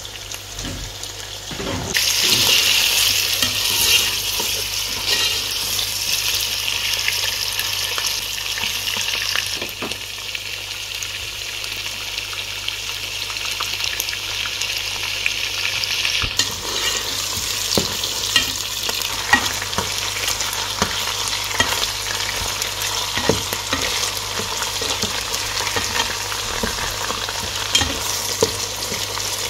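Raw chicken pieces and sliced onions frying in hot oil in a pan: a steady sizzle that jumps suddenly louder about two seconds in and eases a little later. Scattered taps and scrapes come from a spatula stirring the pan.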